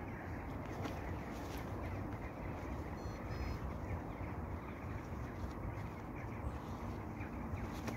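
Faint waterfowl calls, such as ducks, over a steady background hiss of open-air noise.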